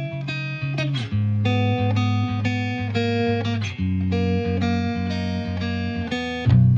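Background music: a plucked guitar melody of short notes over a steady bass line, the bass coming in louder near the end.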